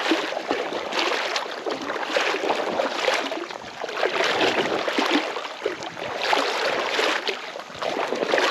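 Creek water sloshing around a wader's legs while walking through the stream, surging with each step about once a second over the running current.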